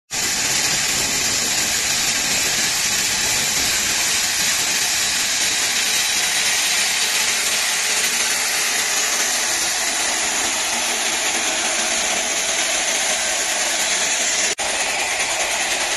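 Granite multi-blade bridge saw cutting through a granite block under water cooling: a steady, loud, high-pitched hissing grind of the large circular blade in the stone. It breaks off for an instant once, near the end.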